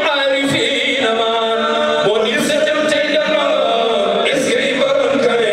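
A group of male voices chanting an Islamic devotional song together through microphones and a sound system, in long held, slowly moving notes.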